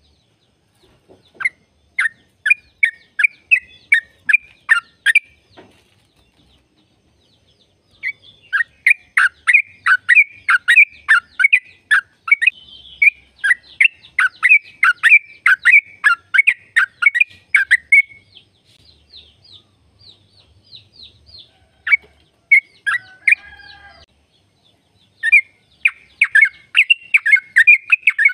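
Yellow-vented bulbul (trucukan) singing long runs of quick repeated chirping notes, about three a second, in several bursts with short pauses between them.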